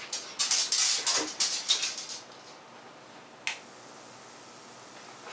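High-voltage sparks snapping and crackling in a homemade Tesla coil's circuit for about two seconds, then a single sharp snap a little over halfway through.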